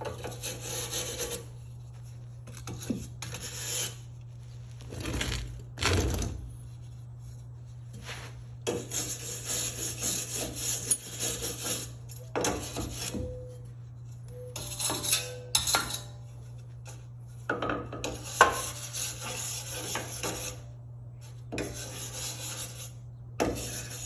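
Metalworking on a zero-turn mower's rear caster mount: repeated scratchy, crackling bursts of one to four seconds each, with short pauses between them, over a steady low hum.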